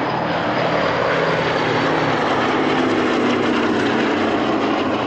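A Boeing B-17 Flying Fortress passing low overhead, its four Wright Cyclone radial engines running steadily at a loud, even level.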